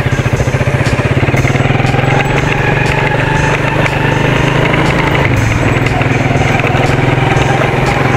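The rider's own motorcycle engine running steadily at an even cruising speed, with a steady rushing noise underneath.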